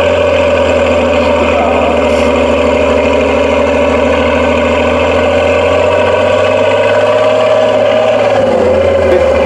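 Praga V3S 6x6 trial truck's diesel engine working hard under load as the truck crawls through deep sand, its note loud and steady with a slight drop in pitch near the end.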